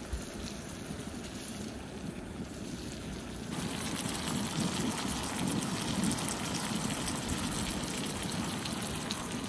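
Lingcod fillet and lemon slices sizzling in melted butter in a cast-iron skillet: a steady crackling hiss that gets louder about three and a half seconds in.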